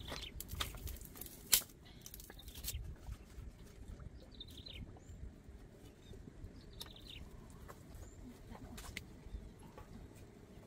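Small birds chirping now and then in short calls over a steady low rumble. A few sharp clicks come in the first two seconds, the loudest about a second and a half in.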